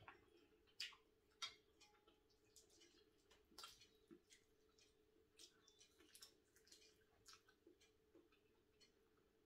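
Near silence with faint, irregular clicks and wet smacks of eating by hand: fingers working rice and meat on a plate, and chewing. A faint steady hum underneath.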